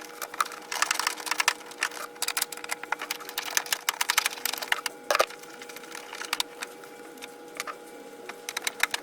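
Foam weatherstrip padding being cut to size and handled: rapid, irregular crackling and clicking, over a faint steady hum.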